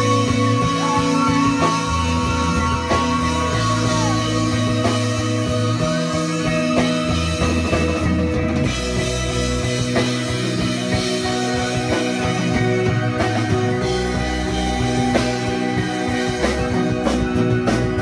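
Live rock band playing an instrumental passage: a deep electric bass line holding notes that change every second or two, with electric guitar, keyboards and drum kit over it.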